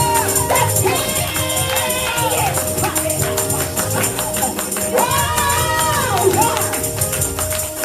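Upbeat gospel music: a tambourine jingling on a steady beat over held chords, with a voice singing two phrases.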